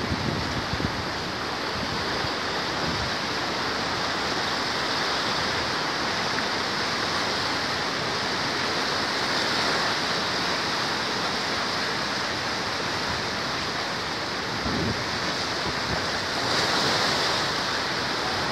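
Flood-swollen Saptakoshi River pouring through the Koshi Barrage past its concrete piers: a steady, loud rush of turbulent water.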